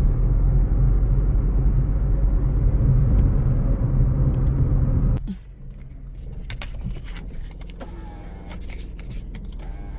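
Steady low rumble of a car's engine and tyres on the road, heard inside the moving car. About five seconds in it drops away suddenly, leaving a quieter stretch with scattered clicks and knocks.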